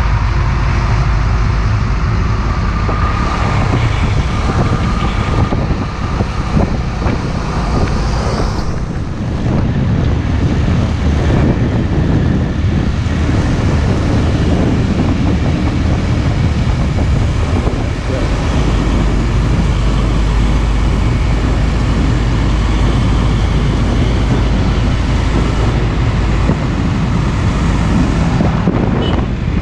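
Heavy diesel trucks driving along a highway close by, with engine and tyre noise and wind buffeting the microphone.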